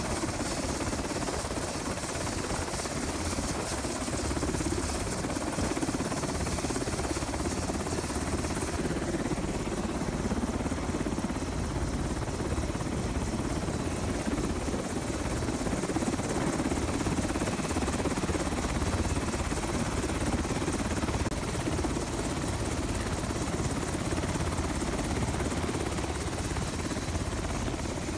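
U.S. Navy Seahawk helicopter turning on the ground with its rotors running: a steady, unbroken rotor and engine noise.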